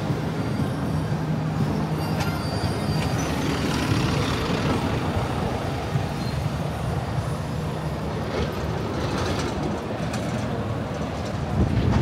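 Busy city-street traffic: the steady noise of large vehicles running close by.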